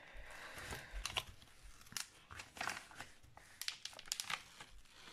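Diamond painting canvas crinkling and rustling as it is handled and turned over, a run of irregular crackles.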